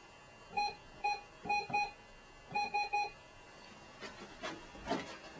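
An electronic keypad beeping as its buttons are pressed: about seven short, identical beeps in quick groups. A few soft knocks and shuffles follow near the end.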